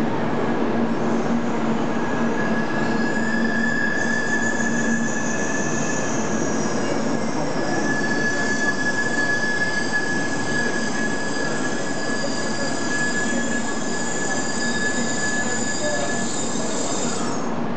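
Shinkansen 700 Series bullet train arriving at the platform, its cars rushing past as it slows. A steady high squeal runs over the rushing noise for most of the time and cuts off near the end.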